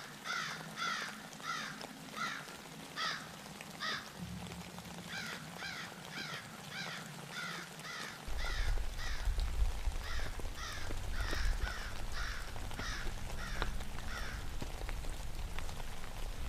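Crows cawing in a long series of short, harsh caws, about two a second, with a short break about four seconds in. A low rumble joins about halfway through.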